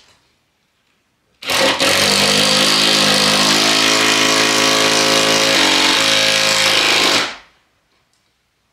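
Cordless drill working into a wooden window frame: a loud, steady whir that starts about a second and a half in and stops after about six seconds.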